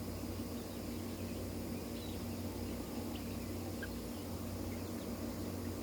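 Chickens clucking softly, with faint scattered peeps, over a steady low hum.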